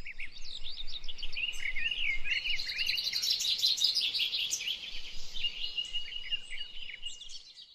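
Several birds chirping and singing at once, many quick overlapping chirps and warbles, with one long level whistled note in the second half.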